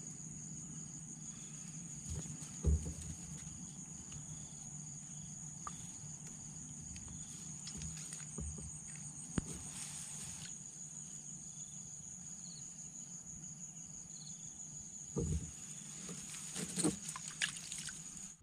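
Insects chirping steadily: a continuous high trill with an evenly pulsing chirp. A few short knocks and thumps come through, one about three seconds in and a cluster near the end.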